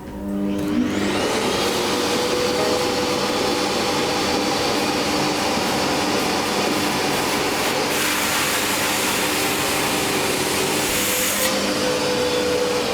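Thomas Parkett Master XT water-filter vacuum cleaner switching on, its motor rising in pitch, then running steadily while sucking spilled milk up through the bare hose, with no nozzle fitted. A louder hiss comes in from about eight to eleven seconds, and the motor starts winding down right at the end.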